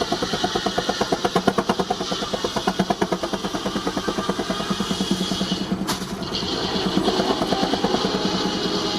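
Baker 19-65 Uniflow steam traction engine running under load to drive a sawmill, with rapid, even beats and a steady high hiss that breaks off briefly with a sharp click about six seconds in.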